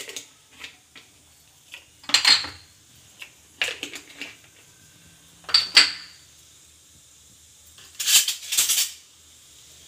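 A metal utensil clinking and scraping against an aluminium kadai in several separate sharp strikes with a metallic ring, and a longer rattling clatter near the end.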